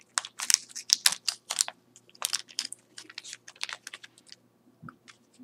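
Light, irregular clicking and tapping of small hard parts being handled: a spur gear and a small 5 mm by 11 mm ball bearing being worked by hand. The clicks thin out near the end.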